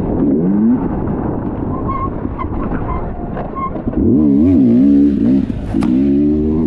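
Dirt bike engine revving up and down as the rider works the throttle on a muddy trail. It eases off for a stretch, then comes back on hard about four seconds in, with a single sharp knock shortly before the end.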